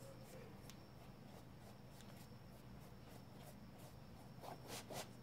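Near silence broken by faint, short scratchy strokes of a paintbrush on canvas, with a few louder strokes near the end.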